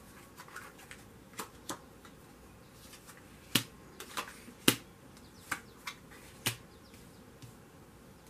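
Tarot cards being handled and snapped down from the deck onto the spread: a series of irregular sharp clicks, the loudest a little past the middle.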